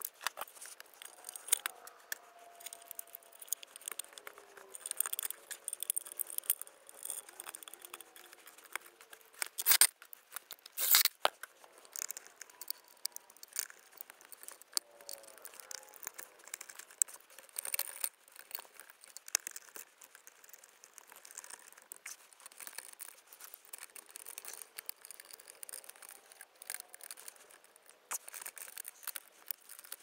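Scattered clicks, taps and rustling from a screwdriver and stiff wires being worked at the terminals of a metal electrical disconnect box, with two louder sharp knocks about ten and eleven seconds in.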